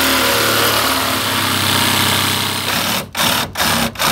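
Cordless reciprocating saw (Sawzall) cutting through a metal trailer crossbar, a loud, steady sawing noise over the motor's hum; near the end it stops and restarts three times in quick succession.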